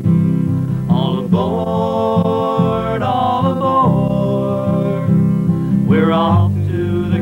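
Country-style song: acoustic guitar accompaniment under long held melody notes.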